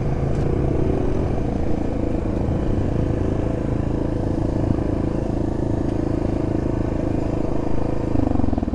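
Motorbike engine running steadily under way, with its note shifting near the end.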